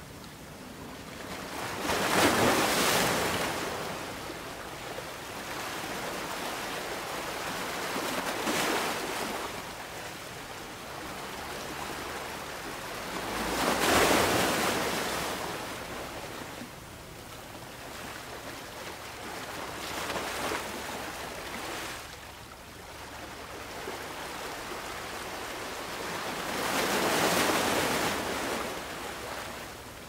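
Rushing water, a continuous hiss that swells and ebbs in five slow surges, about one every six seconds.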